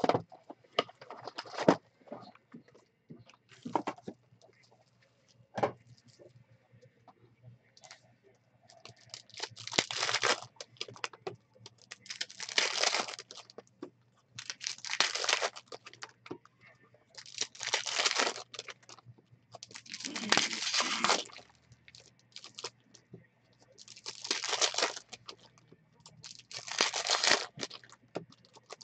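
Foil trading-card packs being torn open one after another: seven tearing rips, each about a second long and two to three seconds apart, starting about ten seconds in. Before that come light clicks and rustles of the cardboard box being handled.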